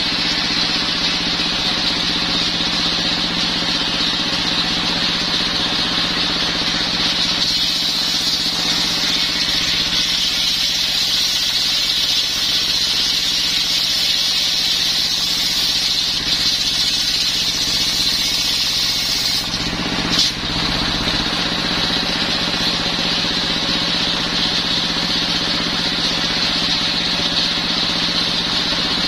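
Stationary single-cylinder diesel engine running steadily, driving a circular saw blade that rips a coconut-wood plank, with a brighter sawing hiss through the middle of the cut. A brief sharp knock comes about two-thirds of the way through.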